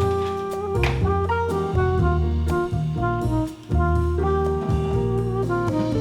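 Background jazz music with horns over a bass line and drums.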